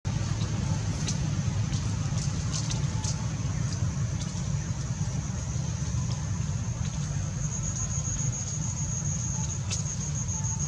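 Outdoor background noise: a steady low rumble with a high, steady buzz that grows louder about two-thirds of the way through, and a few faint scattered clicks.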